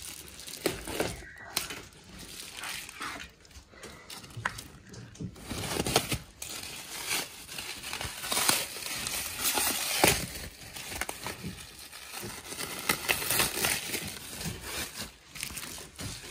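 Plastic wrapping crinkling and rustling, with irregular knocks and scrapes from a pole being worked into the gap of a bed frame.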